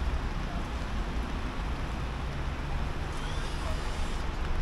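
Rainy city street ambience: a steady noise of traffic on wet roads, with a deep rumble underneath.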